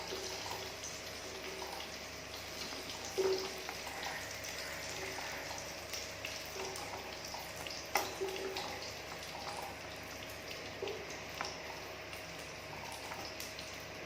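Button mushrooms sizzling steadily as they fry in oil in a pan, with a few light knocks, the clearest about 3 and 8 seconds in.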